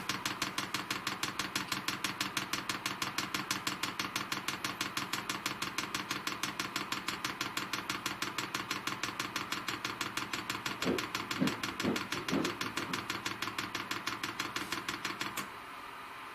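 Fuel dosing pump of a Chinese 5 kW diesel air heater ticking rapidly and evenly as it pumps diesel up the fuel line, stopping abruptly about fifteen seconds in. A few brief squeaky sounds come just before it stops.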